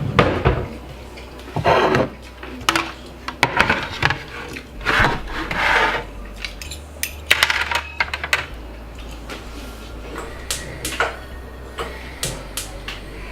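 Kitchen clatter: crockery, cutlery and utensils knocking and clinking in irregular clicks and clanks, with a couple of longer scraping sounds about five seconds in.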